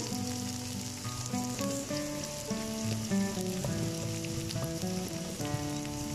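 Sliced onions with a bay leaf and whole spices sizzling steadily in hot oil in a large aluminium karahi, over background music of held notes that change pitch every half second or so.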